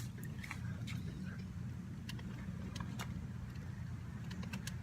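Steady low background rumble with scattered faint clicks and taps.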